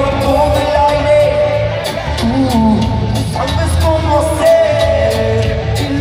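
Live band music over the arena PA, heard from the crowd in a large hall: a steady drum beat with a bass line under a bending melody line and singing.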